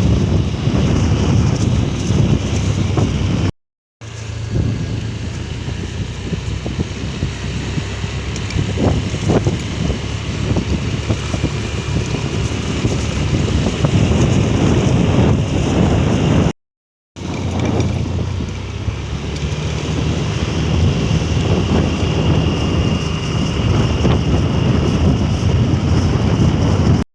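A vehicle engine running while moving along a road, with heavy wind noise on the microphone. The sound cuts out completely for a moment twice, about four seconds in and again around seventeen seconds.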